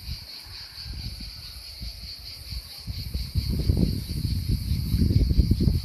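Steady high-pitched chirring of insects in the orchard. Under it runs a low buffeting rumble, which grows louder about three seconds in.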